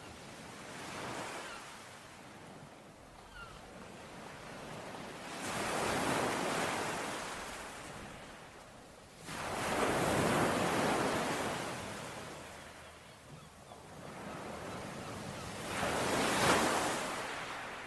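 Sea waves washing ashore in slow surges of surf, each swelling and fading over a few seconds, the loudest about halfway through and near the end. A faint bird chirp about three seconds in.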